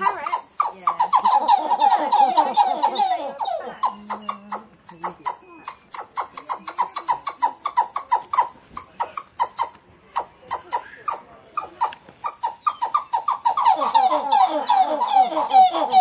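Emperor tamarins calling: a rapid string of short, high chirps and twitters. Quick falling trills come near the start and again near the end.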